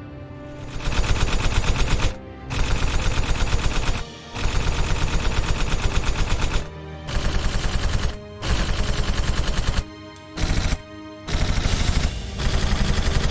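Rapid automatic gunfire in about eight bursts of one to two seconds each, with short pauses between them.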